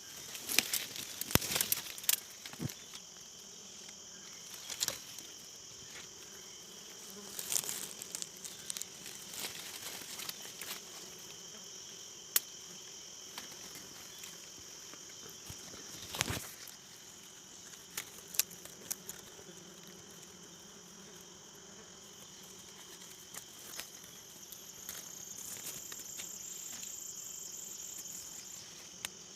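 Insects chirring steadily in a high pitch over a fainter low hum, with scattered sharp clicks and crackles throughout.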